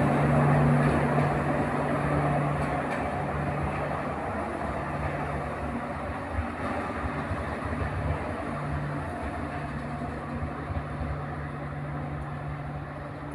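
Passenger express train moving away down the line, the rumble of its wheels on the rails slowly fading as it recedes, with a steady low hum under it.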